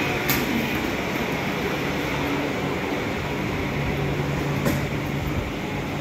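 South Western Railway passenger train pulling out of the platform: a steady run of traction hum and wheel noise that carries on as the train moves away. There is a sharp click about a third of a second in and another near five seconds.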